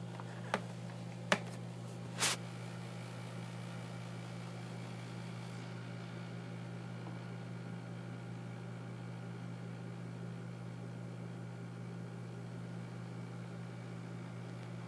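Electric fan running with a steady mechanical hum, from a fan said to have developed an abnormal noise. Three short clicks come in the first couple of seconds.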